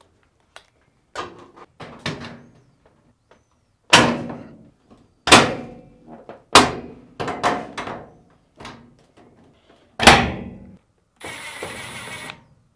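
Sheet-metal top panel of a Samsung top-load washer knocking and thunking as it is lowered and seated on the cabinet: a few light knocks, then about six loud thunks. Near the end a cordless Milwaukee drill runs steadily, driving a screw that secures the top.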